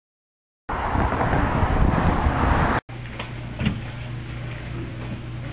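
Background noise from a camcorder's microphone: a loud, rough rumble starting abruptly just under a second in, cut off after about two seconds, then a quieter steady low hum with a few faint clicks.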